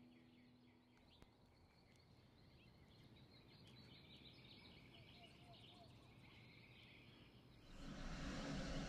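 Near silence: faint background ambience with many quiet, high bird-like chirps. A louder noisy sound comes in near the end.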